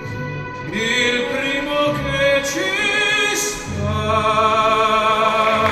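Operatic singing of an Italian song with instrumental accompaniment. The voice glides between notes and, from about four seconds in, holds one long note with vibrato.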